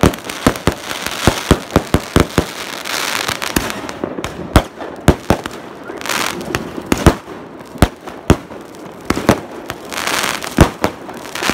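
Fireworks and firecrackers going off: a rapid, irregular string of sharp bangs, with a few short bursts of hiss in between.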